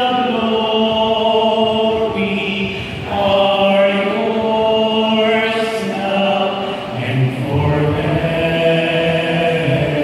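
Slow liturgical chant sung during Mass: long held notes that move step by step in pitch, with a lower male voice joining about seven seconds in.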